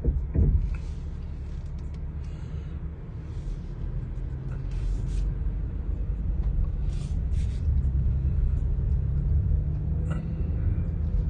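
Steady low rumble of a car being driven, with a thump about half a second in and the engine note rising slightly near the end.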